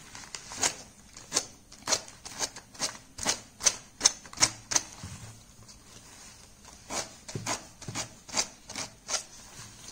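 Fine sandpaper pulled along the rim of a fabric-covered melamine plate, cutting off the excess fabric at the edge. It makes short, sharp strokes about two to three a second, with a pause of about two seconds in the middle.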